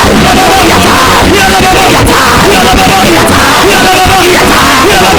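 Loud worship music with a steady repeating pattern, with voices shouting over it.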